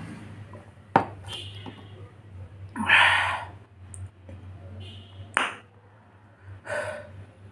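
A metal cup set down on a hard table with a sharp clink about a second in. Then a man's loud breathy exhales and gasps as he reacts to chilli heat in his mouth, with another sharp click between them.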